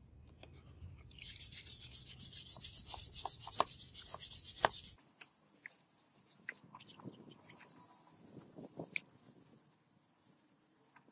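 Hand wire brush scrubbing a rusty forged hammer head in liquid: fast back-and-forth strokes, about six a second. About five seconds in, it changes abruptly to softer, steadier scrubbing with scattered small clicks.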